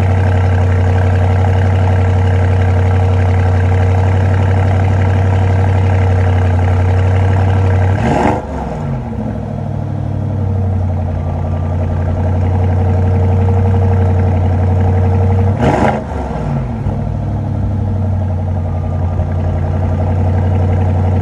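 2021 Audi SQ8's twin-turbo V8 running at a steady fast idle after a cold start, heard at the sport exhaust tailpipes. Twice, about eight seconds apart, the revs rise briefly and fall back to idle.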